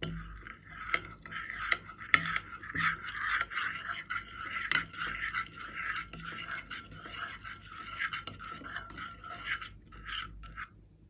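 Continuous scraping with frequent small clicks, as slime is mixed against the side of a plastic container. It stops shortly before the end.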